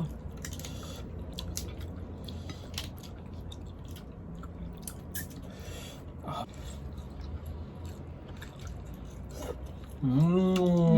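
Close-up eating sounds of boiled seafood: chewing and biting with small wet clicks and smacks. About ten seconds in, a person makes a drawn-out voiced sound, rising then falling in pitch.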